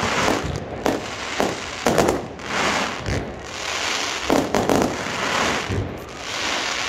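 Fireworks display going off: shells bursting in quick succession, a bang about once a second, each trailing into a crackling hiss.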